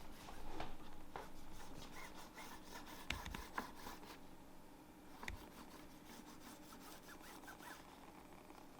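Rubbing and scraping of a screen-removal tool working through the iMac's display adhesive tape, with a few sharp clicks about three and five seconds in.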